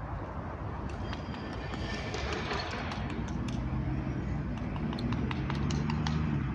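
A motor running with a steady low hum that comes in and grows louder through the second half, over a low rumble, with scattered sharp clicks and knocks.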